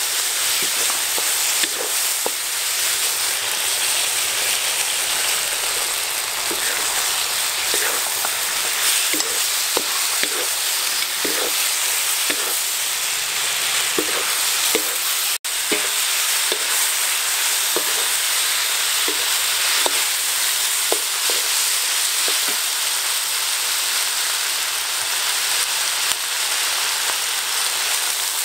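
Pork large intestines and green bell peppers sizzling steadily in a hot wok, with many short scrapes and taps as a wooden spatula stirs them against the pan.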